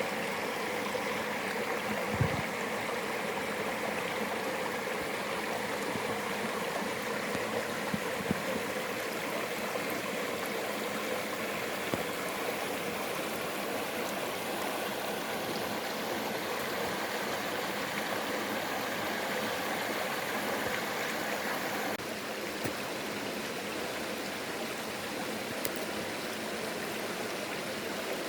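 Stream water rushing steadily over rocks, with a few brief knocks; the rush shifts slightly about three-quarters of the way through.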